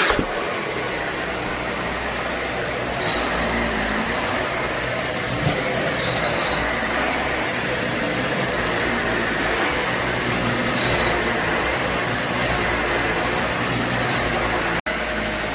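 Dyson Ball Animal 2 upright vacuum cleaner running steadily, with a few short hissing bursts.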